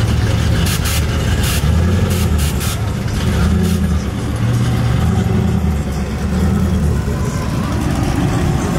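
Engines of lowered cars and trucks rumbling as they cruise slowly past, with a few brief sharp noises in the first few seconds.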